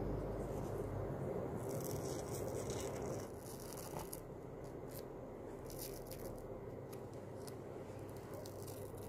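Dried peel-off face mask film being pulled off the skin in small pieces: faint crackling and tearing, with a low rumble underneath that fades out about three seconds in.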